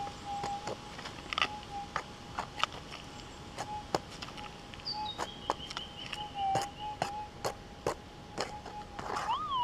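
Gold-prospecting metal detector holding a steady threshold tone, with sharp clicks of soil and stones as a plastic scoop of dirt is tipped and passed over the search coil. Near the end the tone swells up and falls back: a target signal from the gold nugget in the scooped soil.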